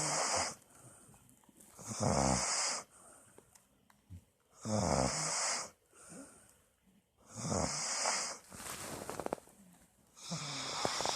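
Steady rhythmic snoring, about five snores roughly two and a half seconds apart. Each snore has a low rattling drone and a strong high hiss.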